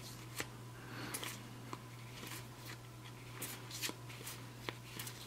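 Stiff game cards being flipped and slid from one hand to the other, a scattering of faint soft clicks and rustles about every half second, over a low steady hum.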